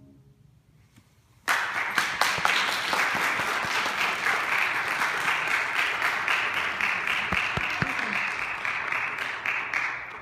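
The last piano chord dies away, and about a second and a half in an audience breaks into applause. The applause stays steady for several seconds and fades out near the end.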